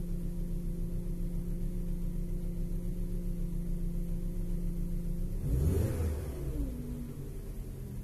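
A steady mechanical hum with a pulsing low rumble. About five and a half seconds in, a louder whine rises and falls in pitch, then a lower tone slides down.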